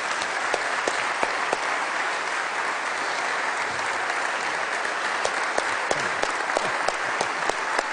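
Audience applauding steadily, a dense sustained clapping welcoming a speaker to the stage.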